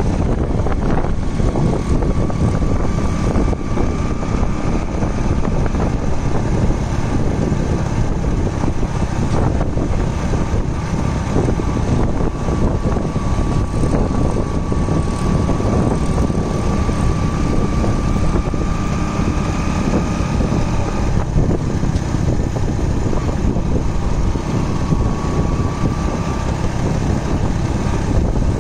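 Steady driving noise of a vehicle on the road: a continuous low rumble with wind, and a faint high whine that slowly wavers in pitch.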